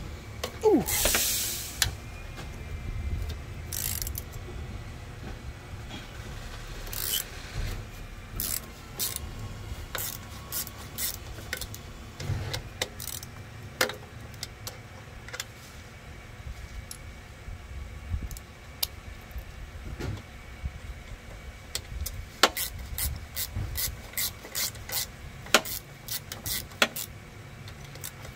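T-handle socket wrench loosening the bolt on a lawnmower engine's exhaust muffler: scattered sharp metal clicks and scraping, coming more often near the end. A short loud rushing noise about a second in.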